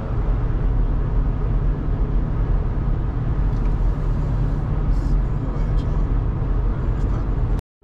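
Steady low road and engine noise inside a BMW X5's cabin cruising at highway speed, mostly tyre rumble and engine drone. The sound cuts out abruptly for a moment near the end.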